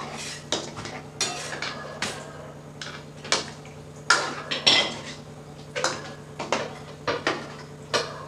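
Metal spoon stirring a thin tomato gravy with baby corn in a metal pan, scraping and knocking against the pan's sides and bottom in irregular strokes. The loudest knocks come about four to five seconds in.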